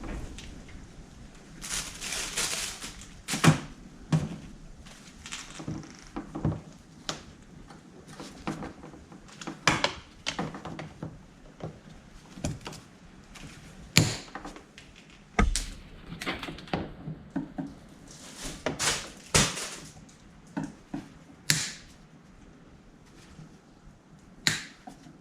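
Irregular knocks, clicks and short scraping sounds of hands and tools working on a snowmobile, with a few louder thunks spread through.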